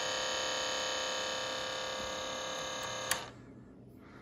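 Steady electrical mains buzz, cut off suddenly with a click about three seconds in.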